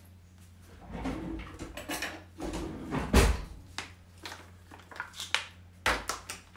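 Handling noise on a kitchen worktop: rustling and knocking as items are moved about, with one louder thump about three seconds in and a few sharp clicks near the end.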